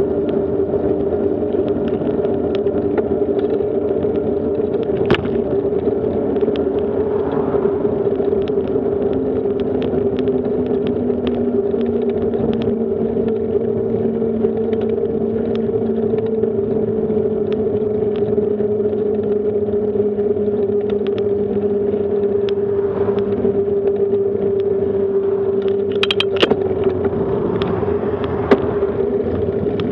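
Bicycle rolling along an asphalt road, a steady droning hum with a second, lower hum that sinks slowly in pitch through the middle, over a rushing noise. Near the end there are brief louder sounds as an oncoming car passes.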